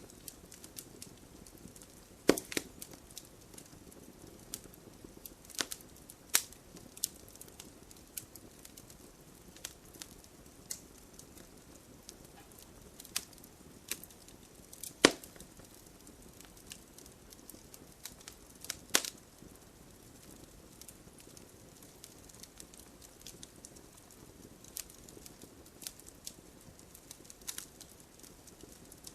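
Campfire of burning logs crackling: a low steady rush under irregular sharp pops and snaps, the loudest about two seconds in, halfway through and about two-thirds through.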